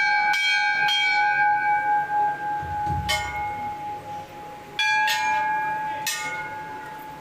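Hindu temple bells struck by hand about six times at an irregular pace, each strike ringing on with a long, steady metallic hum; the strikes come from more than one bell, slightly different in pitch.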